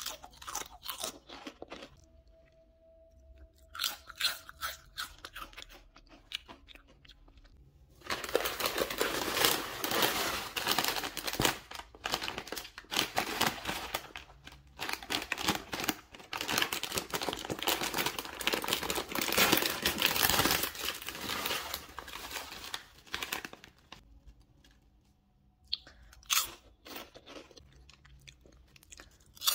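Crisp potato chips being bitten and chewed close to the microphone, a dense, loud crunching for about fifteen seconds through the middle. The foil chip bag crinkles briefly near the start and again near the end.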